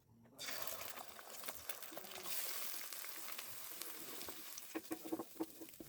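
Food frying in hot oil in a pan, the sizzle starting suddenly about half a second in and holding steady, with a few sharp clicks near the end.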